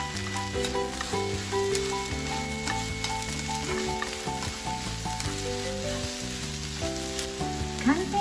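Komatsuna and scrambled egg sizzling in a hot frying pan as they are stirred and tossed with cooking chopsticks, with a few light clicks of the chopsticks on the pan. Light background music of stepped notes plays throughout.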